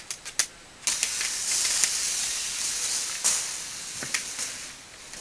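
A few sharp clicks, then a loud hiss that starts suddenly about a second in and slowly fades over the next few seconds.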